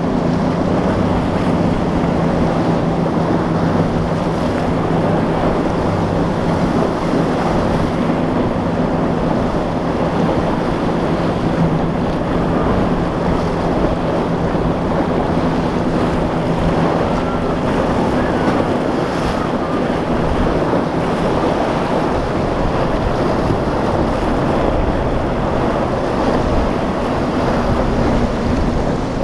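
Rough surf surging and breaking, with wind buffeting the microphone and the steady drone of passing boat engines underneath, which eases off around the middle and comes back near the end.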